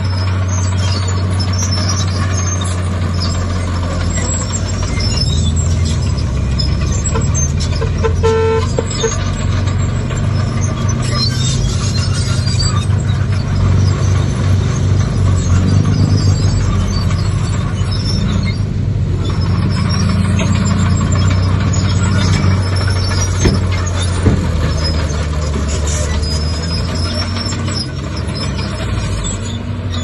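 Heavy diesel earthmoving machinery, a bulldozer with dump trucks working alongside, running steadily, the engine note swelling and shifting as it works. A brief toot sounds about eight seconds in.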